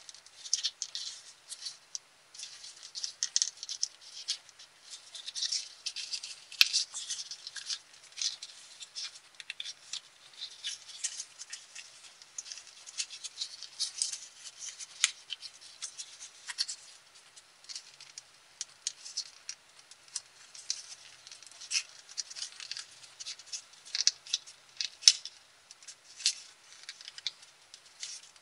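Colored copy paper crinkling and rustling as fingers fold and crease a small origami model, in irregular bursts with a few sharper crackles.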